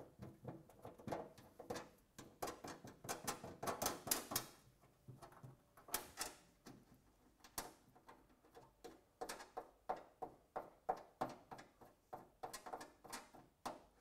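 Faint, irregular clicking and scraping of hands fastening metal fittings on a steam humidifier: the clamp on the steam hose adapter and the star-knob screws on the stainless steel cabinet top.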